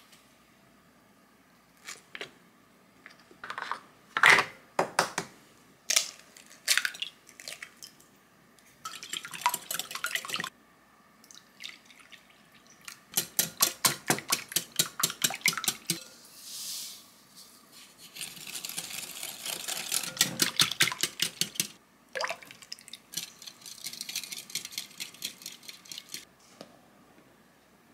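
A wire whisk beating batter in a glass mixing bowl: two long runs of fast, rhythmic strokes of metal against glass. Between them come scattered taps and knocks and a stretch of liquid being poured into the bowl.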